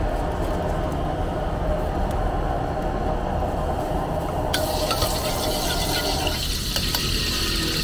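A steady low rushing throughout, as from the wok burner. About four and a half seconds in, cooking oil hits the hot wok and starts to sizzle, and a metal ladle swirls it around the pan with a few light clinks.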